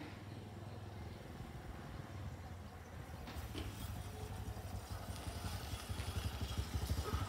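Small underbone motorcycle's engine running as it rides closer, growing steadily louder toward the end.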